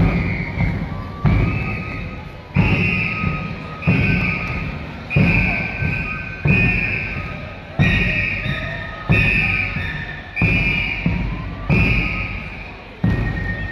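A large drum beaten in a slow, steady rhythm, about three strokes every four seconds, each stroke ringing out and fading. A high pito flute plays held notes along with it.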